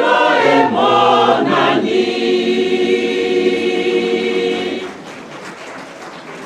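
Mixed church choir singing, a few moving phrases and then one long held chord, released about five seconds in, leaving fainter noise in the hall.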